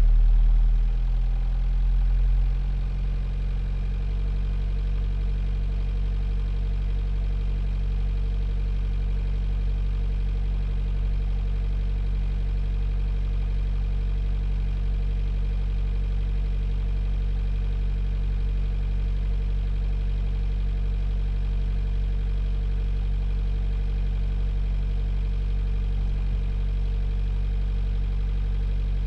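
A 45 ft sailboat's inboard diesel engine, heard from inside the rear cabin, is throttled back over the first couple of seconds, its pitch and loudness dropping, and then runs steadily at a low, idle-like speed.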